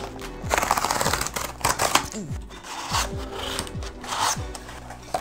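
A cardboard shipping box being torn open along its tear strip, a rough ripping sound about half a second to two seconds in. Shorter scrapes and rustles of the cardboard flaps follow near three and four seconds.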